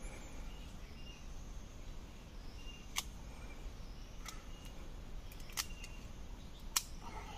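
Four sharp clicks of wood knocking on wood, the loudest near the end, as the parts of a handmade bow trap are fitted together. Faint bird chirps over a low outdoor background.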